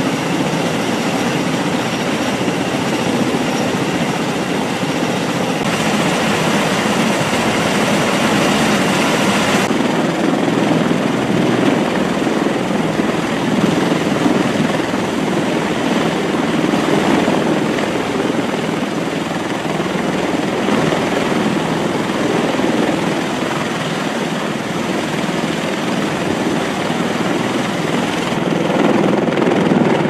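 MV-22B Osprey tiltrotors running on a ship's flight deck with their proprotors turning: a loud, steady din of turboshaft engines and rotor wash. Its tone shifts about six and ten seconds in and again near the end.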